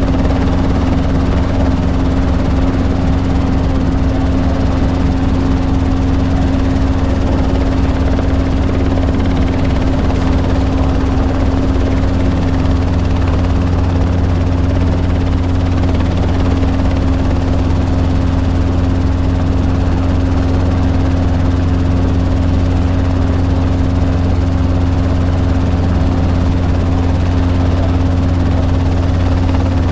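Robinson R22 helicopter's piston engine and main rotor running steadily at hover power while the helicopter hover-taxis, heard from inside the cockpit. A constant hum sits over a deep drone, with no change in pitch or level.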